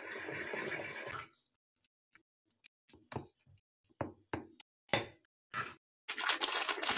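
A fork stirring batter in a ceramic bowl: a scraping, rustling stir in the first second, then a string of separate sharp knocks and clicks of the fork against the bowl, and more scraping near the end.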